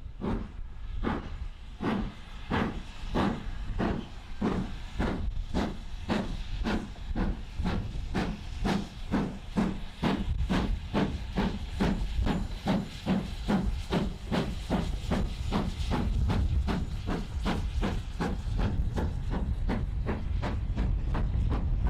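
GWR King class four-cylinder 4-6-0 steam locomotive No. 6023 King Edward II pulling away with a train. Its sharp exhaust beats quicken steadily as it gathers speed, from about two a second to well over three, over a steam hiss. A low rumble of the train rolling past builds near the end.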